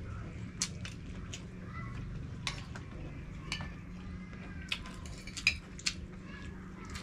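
Spoons and forks clinking and scraping on plates during a meal, in scattered sharp clinks. A steady low hum runs underneath.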